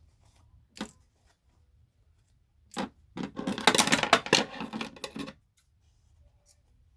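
Straight pins being pulled out of a sewn cloth mask: a few separate clicks, then about two seconds of dense small clicks and fabric rustling from handling.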